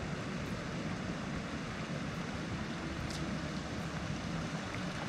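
Steady outdoor wind and flowing-water noise, an even hiss with no distinct events, and a faint tick about three seconds in.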